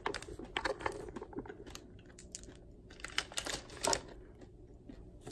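Hard candy-shelled peanut M&M's clicking and knocking against each other as they are handled and sorted in a palm: small, irregular clicks scattered throughout.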